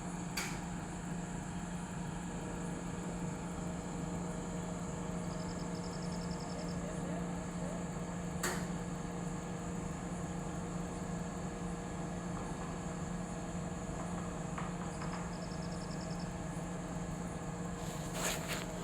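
Large XCMG mobile crane's diesel engine running steadily with a low, even hum, broken by three sharp clicks and, twice, a short burst of fast high ticking.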